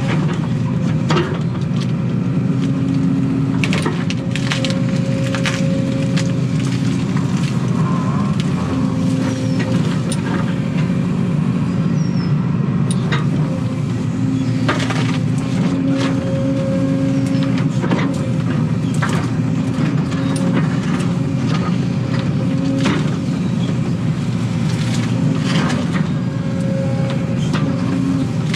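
Excavator's diesel engine running under load, heard from the cab, with a pitched whine that comes and goes as the hydraulics work the boom and bucket. Over it come repeated sharp cracks and snaps of branches, roots and stumps breaking as the bucket tears up brush.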